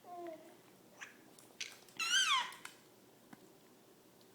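A toddler's high-pitched squeal, once, about two seconds in, wavering and then falling in pitch, after a fainter short squeal at the start.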